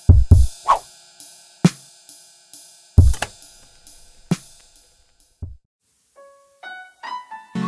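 Drum kit played as a short intro: a handful of kick drum hits, each with a cymbal crash ringing out, and light cymbal ticks in between. The drumming fades away about five seconds in. A few single plucked notes step upward near the end.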